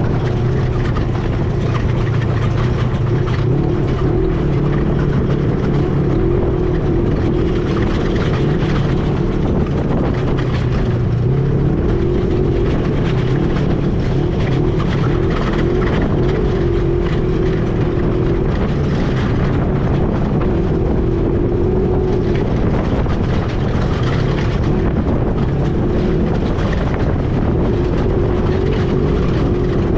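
ATV engine running steadily while riding, its pitch wavering slightly with speed, over the rumble of the ride.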